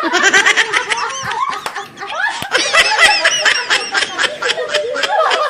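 Loud laughter from two adults, in quick repeated bursts.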